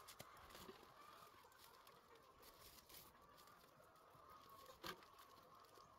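Near silence, with a few faint clicks, the clearest about five seconds in.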